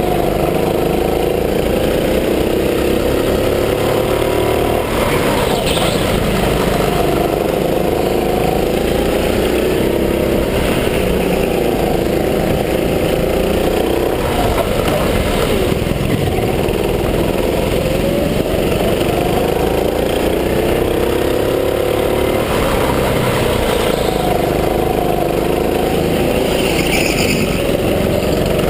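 Gas-powered go-kart engine running hard, its pitch rising and falling again and again with the throttle through the laps.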